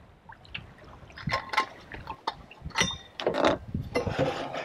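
A plastic water jug and a water bottle being handled, with knocks and a ringing clink, then water poured from the jug into the bottle, two short rushes of pouring near the end.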